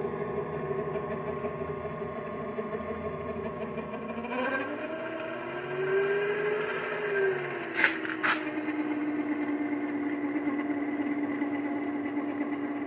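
Sumore 7x14 mini lathe running with its new 4-inch three-jaw chuck: a steady motor whine that rises in pitch about four seconds in, then falls and settles at a lower pitch as the speed knob is turned down. Two sharp clicks come as the pitch falls.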